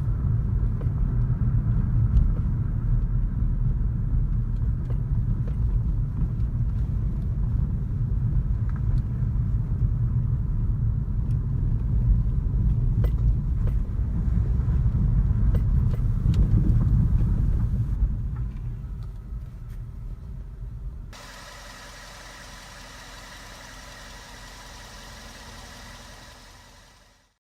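2012 Suzuki Swift Sport with its CVT transmission making an abnormal noise while running: a loud, steady low rumble. It eases off, then about three-quarters through it changes abruptly to a quieter steady hum with several steady tones, which fades out near the end.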